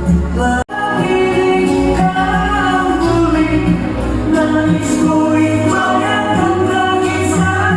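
Music with a singing voice over a steady bass, cut off for a split second under a second in and then carrying on.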